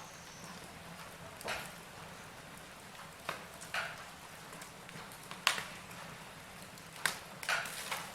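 Wood fire burning in a fireplace: burning logs crackling over a low steady hiss, with irregular sharp snaps and pops every second or so, the loudest about five and a half seconds in.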